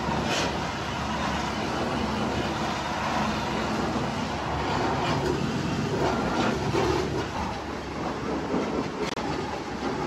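Pressure washer running, its water jet spraying against the finned copper-and-aluminium coil of a window air conditioner, a steady mechanical hum under the rush of spray. The sound breaks off for an instant about nine seconds in.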